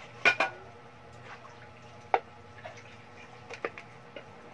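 A metal blade ticking and scraping as it scores around a thin aluminium soda can: a quick double click about a quarter second in, a single sharp tick about two seconds in, and two lighter ticks near the end.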